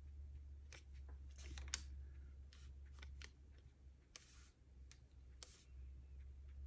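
Faint, short scratchy strokes of a fine paintbrush on Yupo synthetic paper, several in a row, over a low steady hum.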